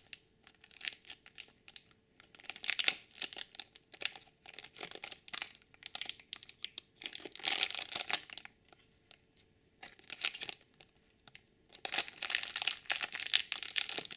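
A small Shopkins blind bag being torn open and crinkled by hand, in irregular bursts of tearing and rustling, the busiest around 3 s, 7 to 8 s and 12 to 14 s in.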